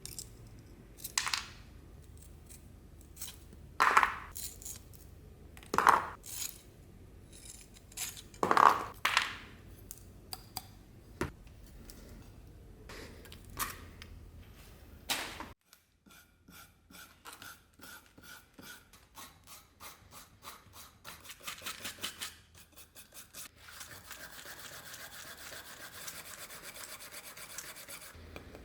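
Hand scrubbing and scraping on a rusty steel knife blade: a few separate loud scrapes in the first half, then, after a cut, a quick run of short even rubbing strokes that turns into steady scrubbing near the end.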